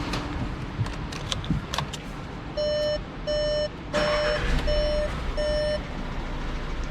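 A few sharp clicks, then a Mk5 VW Polo's dashboard warning chime beeping five times in an even rhythm at one steady pitch, as the ignition is switched on. A brief rush of noise comes with the third beep.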